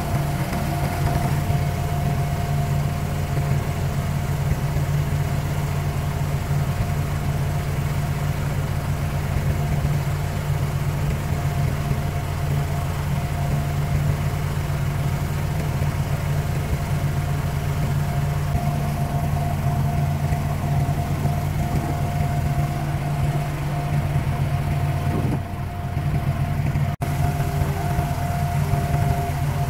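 An abra water taxi's inboard diesel engine running at a steady pitch, with the hiss of water along the hull. The drone breaks off for an instant near the end.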